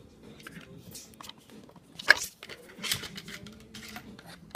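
Handling noise from a phone being picked up and moved by hand: rubbing and clicks on its microphone, with a sharp knock about two seconds in and another burst of rustling about a second later.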